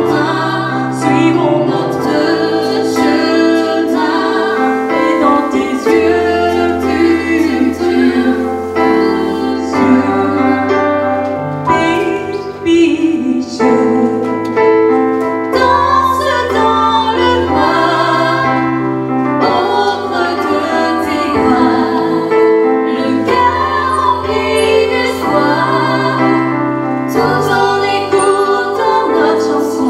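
A woman singing a song into a microphone over keyboard accompaniment with long held chords and bass notes that change every couple of seconds.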